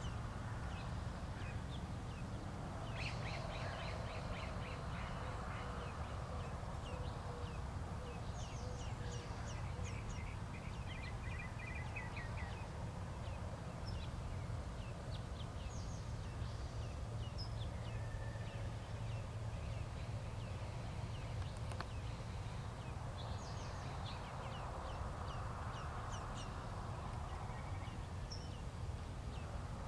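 Western bluebirds calling: short, high chirps that come in quick clusters several times. A steady low hum runs underneath.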